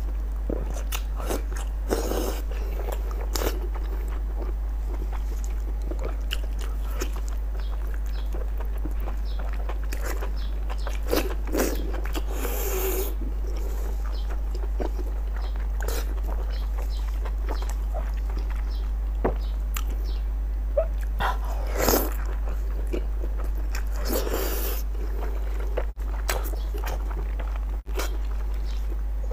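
Close-miked chewing and biting of braised large intestines in chili sauce: wet smacking and sucking, with a few louder slurps. A steady low hum runs underneath.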